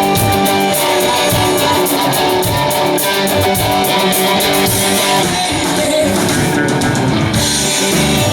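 Rock music with guitar, drums and singing, playing steadily.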